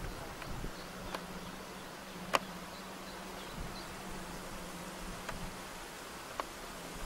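A steady low buzz under an even hiss, with a handful of sharp clicks; the loudest click comes about two and a half seconds in.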